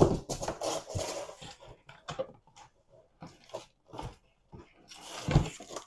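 Packing in a printer box rustling and crinkling as items are lifted out, with a heavier thump about five and a half seconds in.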